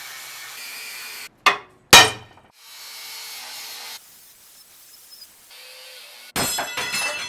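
Metalworking shop sounds in quick cuts: a steady hiss, two sharp metal strikes about half a second apart that are the loudest part, more hiss, then a burst of ringing metal clatter near the end.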